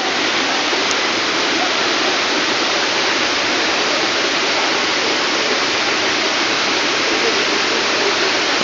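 Heavy rain pouring down in a loud, steady, dense hiss.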